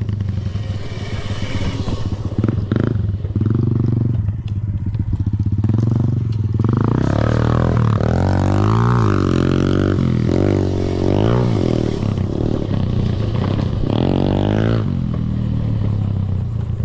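Gas dirt bike engine running. From about halfway through it revs up and down repeatedly for several seconds, then settles back to a steady note near the end.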